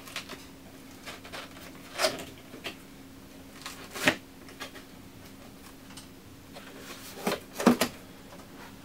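Cardboard telescope box being handled and opened by hand: scattered scrapes and rustles, with louder ones about 2 and 4 seconds in and a pair near the end, over a faint steady hum.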